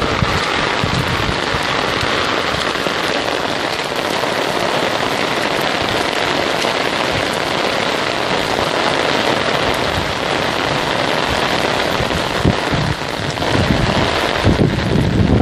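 Torrential rain pouring down on open ground: a loud, steady hiss. Gusts of wind rumble on the microphone near the end.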